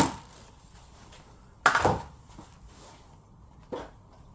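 Two sharp knocks from chainsaws being handled and moved: a loud one just under two seconds in and a fainter one near the end.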